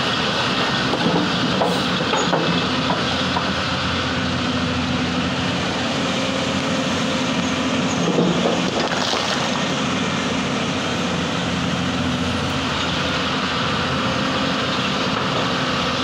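Hyundai 220LC crawler excavator working: its diesel engine runs steadily, with a few sharp clanks of the bucket against stones.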